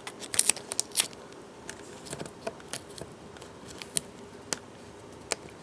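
Small sharp clicks and crinkles of adhesive tape and a small plastic part being handled while a connector is fitted on a laptop LCD panel. A quick cluster comes in the first second, then single clicks every second or so.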